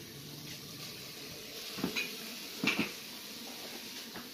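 Ceramic mugs and dishes clinking in a stainless steel sink during hand washing: two clusters of sharp knocks about a second apart near the middle, over a steadily running tap.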